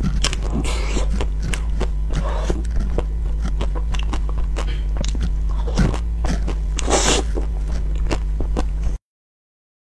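Close-up mouth sounds of biting and chewing a chocolate-covered treat: many small sticky clicks and crunches, with brief rustles about one second and seven seconds in, over a steady low hum. The sound cuts off about a second before the end.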